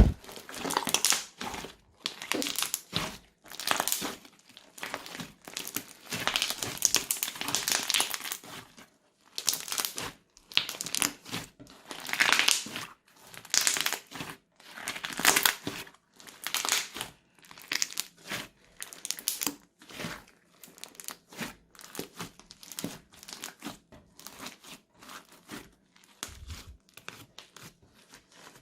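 Crunchy slime being squeezed and pressed by hand, crunching in repeated bursts of a second or so that become shorter and quieter near the end.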